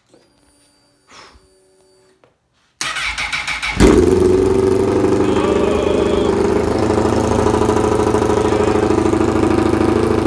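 2005 Honda CBR1000RR inline-four motorcycle engine being started. There is a faint whine first, then about a second of cranking on the electric starter before it catches and settles into a steady idle. It has no exhaust pipe fitted, so it is really loud.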